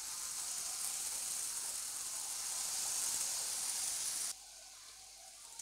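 Batter-coated boiled chickpeas sizzling as they deep-fry in hot oil: a steady high hiss that drops suddenly to a much fainter level about four seconds in.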